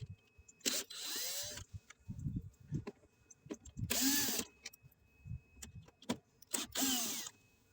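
Cordless power drill-driver run in three short bursts, each winding up and down, backing out the screws of a plastic cover, with light knocks of handling between bursts.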